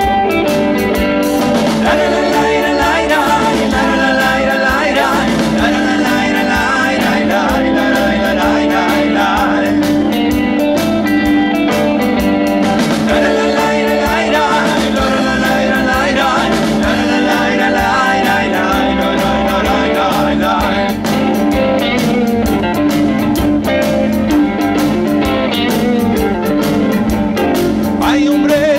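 A rock band playing live: electric guitars and bass guitar over drums, with a steady beat.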